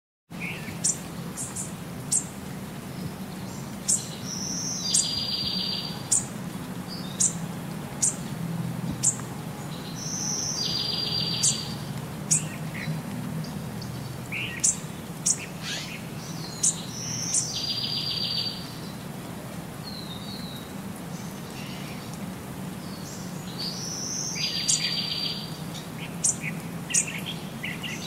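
Birds chirping: many short, high chirps, and about every six seconds a one-second buzzy trill.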